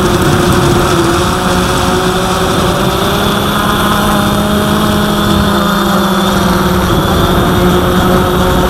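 Cheerson CX-22 quadcopter's electric motors and propellers humming steadily, the pitch shifting slightly in the middle as the motors adjust. Strong gusty wind rumbles on the microphone throughout.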